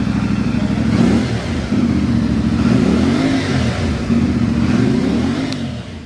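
CFMoto 450MT's 449 cc parallel-twin engine revved from idle in a stationary sound check, the pitch rising and falling back three times.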